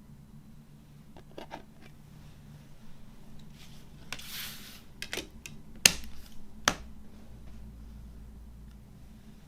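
A CD and its plastic case being handled: a few light clicks, a short rustling slide, then two sharp plastic snaps about a second apart.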